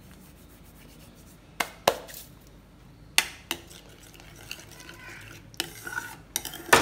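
Steel spoon stirring a thick gravy in a stainless steel pan, clinking against the side of the pan a few times, the loudest near the end.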